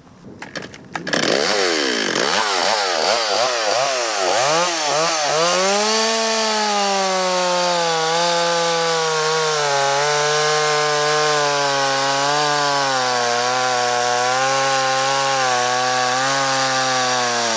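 Stihl 026 two-stroke gas chainsaw and Milwaukee cordless chainsaw cutting wood together. They start about a second in with revving that rises and falls, then hold a steady, slightly wavering pitch under load through the cut.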